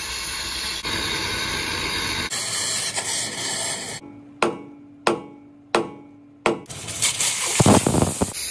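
A steady hiss, then four hammer blows on steel about two-thirds of a second apart, each ringing briefly, before the hiss comes back near the end.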